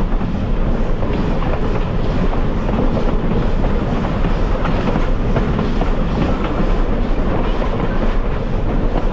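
Railway passenger car rolling steadily along the track: a continuous loud rumble with faint clicks of the wheels on the rails.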